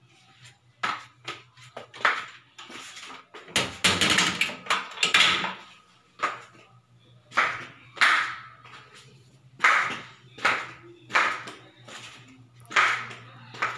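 Footsteps going down tiled stairs, one sharp step-knock roughly every half second to second, with a louder cluster of knocks about four seconds in. A steady low hum runs underneath.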